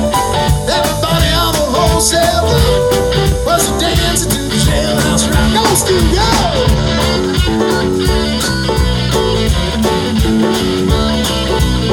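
Live blues-rock band playing: electric guitar carrying a lead line with bending notes over a drum kit and keyboard, at a steady beat.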